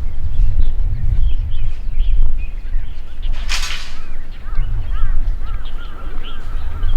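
Several birds chirping and calling, one of them repeating a short rising-and-falling note over and over in the second half, over a steady low rumble. A brief hiss comes about halfway through.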